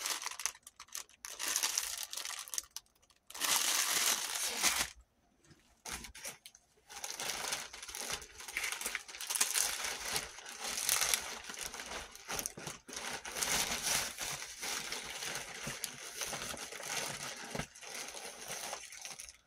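Clear plastic packaging crinkling and rustling as it is handled, coming in spells with a short pause about five seconds in.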